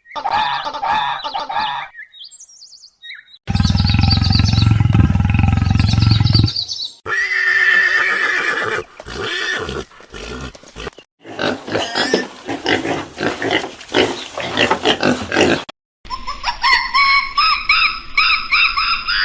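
Several different animals calling in quick succession, each clip cut off abruptly for the next. The calls run from pitched cries to a loud, deep call about four seconds in, then rapid repeated calls and higher-pitched calls near the end.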